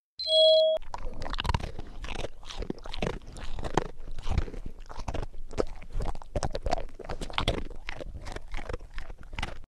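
A domestic cat chewing and nibbling on its own paw close to the microphone: irregular clicking, crunching bites, several a second. A short electronic tone sounds just before it starts.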